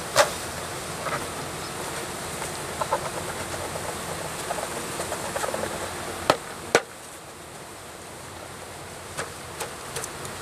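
Italian honeybees buzzing as a wooden package of bees is shaken out over an open hive. There are sharp knocks just after the start and two more close together about six seconds in, as the package is banged to dislodge the bees.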